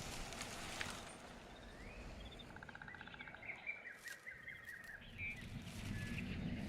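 Birds chirping and trilling, short calls and a fast trill over a faint, steady outdoor background; a low rumble swells near the end.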